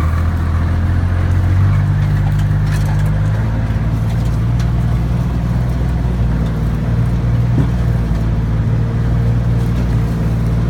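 A vehicle's engine running steadily at low revs, its pitch stepping up slightly about two seconds in and again shortly after.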